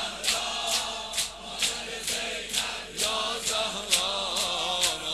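Mourners beating their chests (sineh-zani) in a steady rhythm, about two sharp slaps a second, under a crowd of voices chanting.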